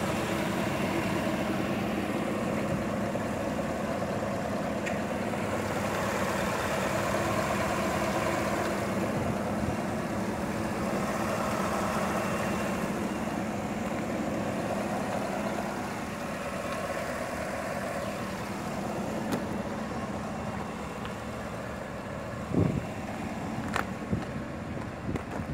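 2018 Chevrolet Tahoe's 6.2-liter V8 idling steadily, heard from above the open hood. It drops a little in level about two-thirds of the way through, with a few light knocks near the end.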